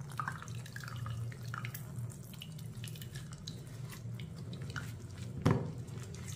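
Ragi milk being squeezed by hand out of a cloth bag of ground ragi paste over a steel mesh strainer: small wet squelches and drips of liquid falling through, with one sharp knock about five and a half seconds in.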